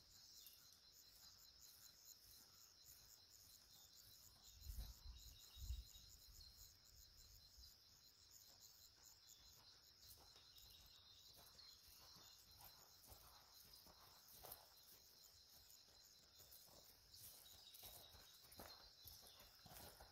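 Faint, steady chirring of crickets, with two low thumps about five seconds in. Faint hoofbeats of a horse moving over grass come in during the second half, growing nearer toward the end.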